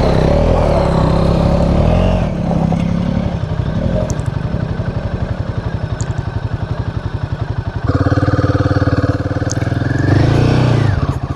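Royal Enfield Himalayan 450's single-cylinder engine working in deep sand: revved hard at first, then running at low revs with a steady pulsing beat, then opened up sharply about eight seconds in, rising in pitch as the bike pulls away.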